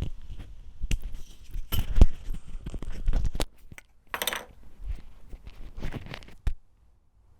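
Handling noise on LOM Mikro Usi miniature microphones: irregular close clicks, knocks and rubbing as they and their fitted cones are handled, with the loudest knock about two seconds in. It stops with a last click about six and a half seconds in.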